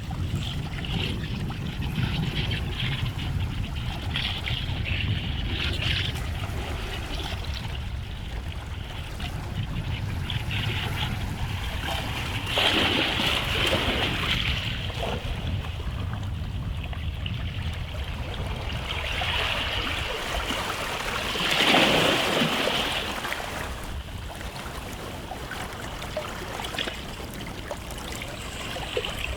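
Small sea waves washing onto a beach and trickling back, with a steady low rumble underneath. Two larger waves break and wash in, one a little before halfway and a louder one about three quarters of the way through.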